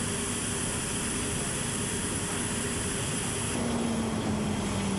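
Steady machinery noise on an airfield apron beside a parked cargo aircraft, with a faint high whine throughout. After a cut about three and a half seconds in, a low drone slowly drops a little in pitch.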